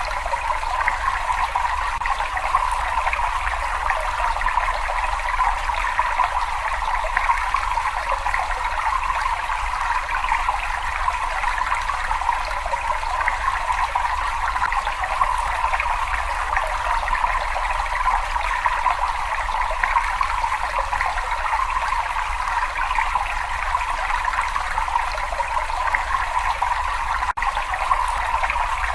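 Steady trickling, running water, an unbroken rush with no pauses or single drips standing out.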